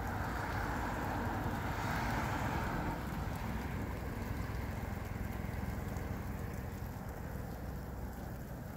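Steady rain falling, with a car passing on the wet street over the first few seconds, its tyre hiss swelling and then fading.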